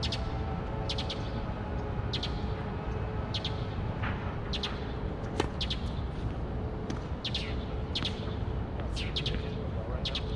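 A bird chirping over and over, short high notes in quick pairs and triplets, over a steady low rumble. A single sharp knock sounds about five seconds in.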